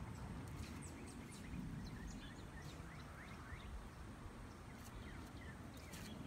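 Faint outdoor ambience: low wind rumble on the microphone, with birds giving many short, falling chirps.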